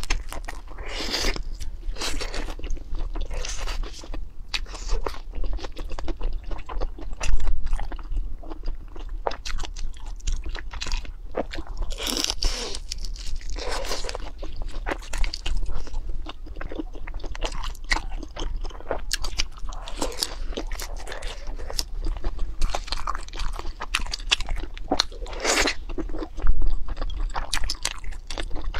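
A person biting and chewing crunchy fried food close to the microphone: a steady run of crisp crunches and chewing noises, with louder bursts of crunching every few seconds as new bites are taken.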